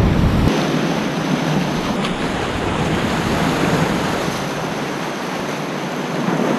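Ocean surf breaking and washing over rocks, a steady rush of white water.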